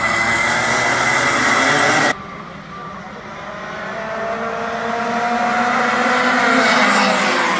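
A pack of 125cc Rotax Max two-stroke racing karts running at speed. The sound breaks off sharply about two seconds in, then more kart engines come in quieter, rising in pitch and growing louder as they accelerate toward the microphone.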